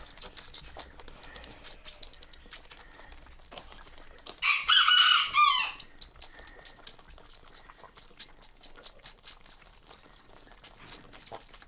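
A rooster crows once, about four seconds in, for roughly a second and a half. Under it, faint quick clicking and sucking from a lamb and a goat kid nursing on bottle nipples.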